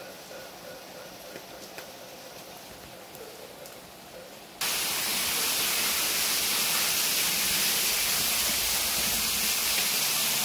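Heavy rain pouring down, a loud steady hiss that starts abruptly about four and a half seconds in, after a few seconds of faint, quiet ambience.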